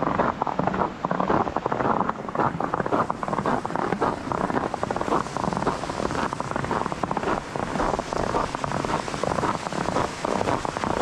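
Wind buffeting the microphone outdoors: a loud, uneven rushing noise that swells and dips all the way through, with no steady tone.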